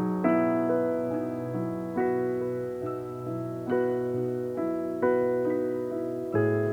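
Calm solo piano music, slow notes and chords each struck and left to ring and fade.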